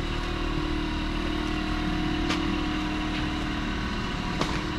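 An engine running steadily at idle, with a couple of short knocks or clicks.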